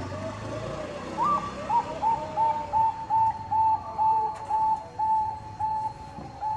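Zebra dove (Bangkok-type perkutut) calling: a rapid run of short, evenly spaced cooing notes, about three a second, shifting up to a higher, steadier pitch after the first second.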